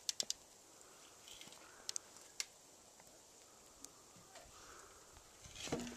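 Scattered sharp knocks and taps of boots and trekking poles on a wooden shelter step as a hiker kicks snow off his boot. A quick cluster comes just at the start and a few more about two seconds in, over a faint steady hiss.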